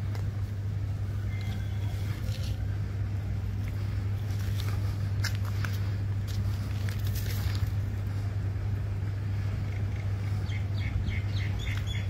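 A steady low hum throughout, with a few faint clicks around the middle and a quick run of about a dozen short bird chirps near the end.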